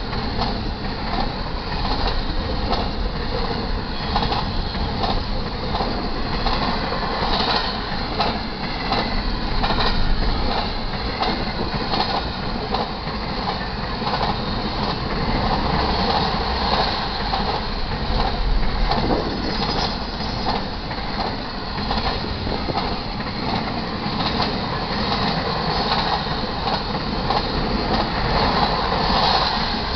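Intermodal freight cars loaded with double-stack containers and trailers rolling steadily past: the continuous rumble of steel wheels on rail, broken by repeated clacks as the wheels cross the rail joints.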